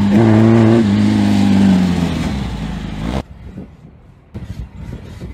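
A Volkswagen Beetle off-road race car's engine running loudly, its revs falling away over the first couple of seconds. The sound cuts off abruptly about three seconds in, followed by a much quieter stretch with scattered knocks and clatter.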